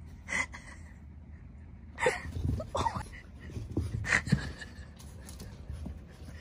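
French bulldog puppy snorting and sniffing in a few short, noisy bursts.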